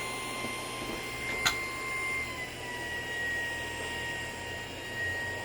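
Shark PowerDetect cordless stick vacuum motor running with a steady high whine that drops slightly in pitch a little over two seconds in. There is a single sharp click about a second and a half in.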